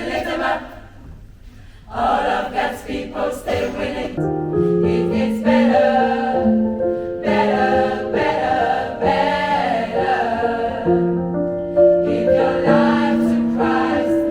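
Women's gospel choir singing. There is a short break about a second in, then the singing resumes, with held chords sounding under the voices from about four seconds in.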